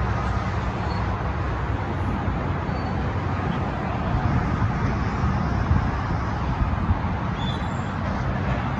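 Steady low rumble of distant engines, with a constant hiss of outdoor background noise.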